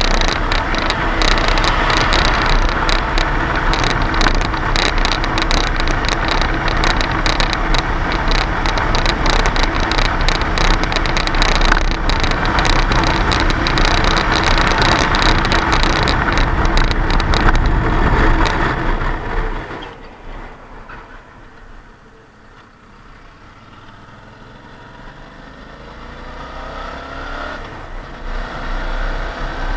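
Wind rushing over the microphone with the 2018 Suzuki V-Strom 650's V-twin engine running at high speed. About two-thirds of the way through, the noise falls away sharply as the bike brakes and slows, then the engine note rises again near the end as it pulls away.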